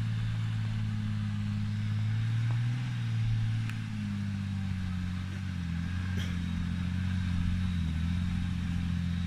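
An off-road 4x4's engine running steadily at low revs, its pitch sagging slightly now and then.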